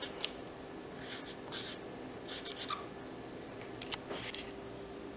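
Felt-tip marker writing on lined paper: a few short scratchy strokes in bursts about a second apart.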